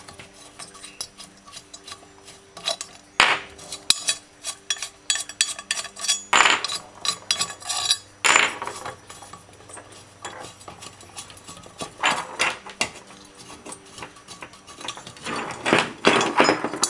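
Metal parts of a disassembled Briggs & Stratton lawnmower engine clinking and knocking as they are handled, in scattered clusters of sharp clicks.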